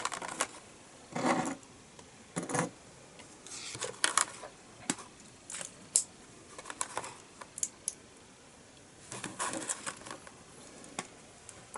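Small plastic Lego pieces clicking and rattling as they are handled and snapped together, in scattered irregular clicks with a few brief louder bursts of clatter, about one and two and a half seconds in and again near ten seconds.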